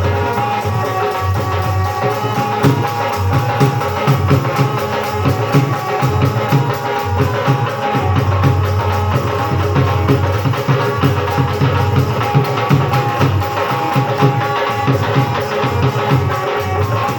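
Loud folk music driven by fast hand-drum percussion over heavy bass, played through a sound system being checked.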